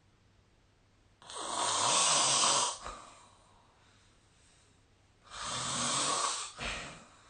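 A sleeping person snoring: two loud snores about four seconds apart, each lasting about a second and a half, the second followed by a brief extra burst, with quiet breathing between them.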